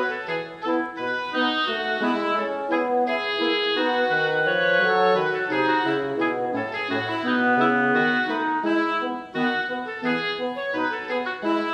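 Background music: a melody of held instrumental notes over changing chords.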